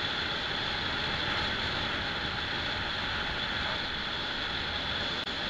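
Steady driving noise of a car on the road, with a thin constant high tone over it. A brief click about five seconds in.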